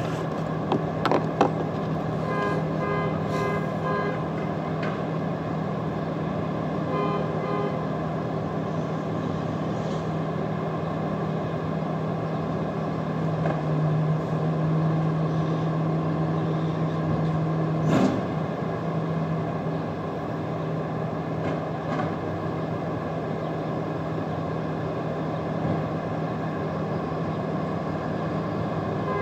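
Garbage truck engine running steadily out of sight, with two short runs of beeps about two and seven seconds in. A couple of sharp knocks come about a second in, and a louder clank about eighteen seconds in.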